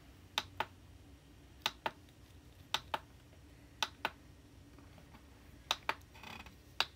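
Small plastic control buttons clicking, each press a quick double click, about once a second, as a DVD menu is stepped through.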